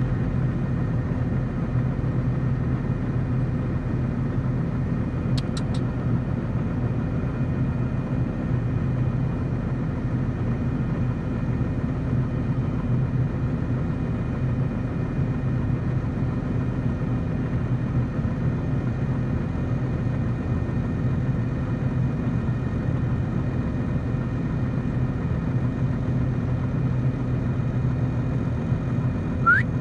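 Engine idling steadily, a low even hum that does not change.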